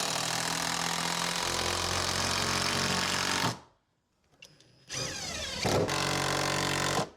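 A power tool running under load in two bursts, the first about three and a half seconds and the second about two seconds, each cutting off sharply.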